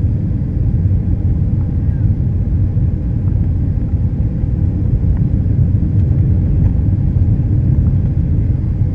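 Steady low rumble of cabin noise inside a Boeing 737-300 descending on approach: its CFM56-3 engines and the rush of airflow over the fuselage, with a faint steady hum.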